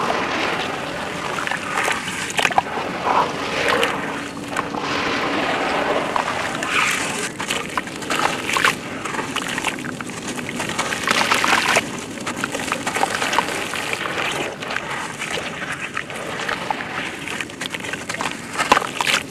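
Hands sloshing through a tub of muddy water and squeezing a soaked sand chunk so it crumbles, with wet splashing and gritty crunching throughout and a few louder splashes.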